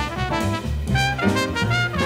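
Small jazz band playing live: a trumpet plays a moving melodic line over piano, upright bass and a drum kit with regular cymbal strokes.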